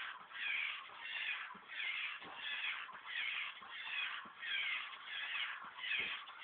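Small humanoid toy robot walking, its servo motors whirring in rhythmic rasping bursts a little under twice a second, with occasional light taps of its feet on the wooden floor.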